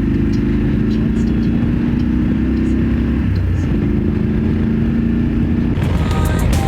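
BMW F850GS parallel-twin motorcycle engine pulling away onto the highway, its note steady with a brief dip about three seconds in, as at a gear change. Music comes in near the end.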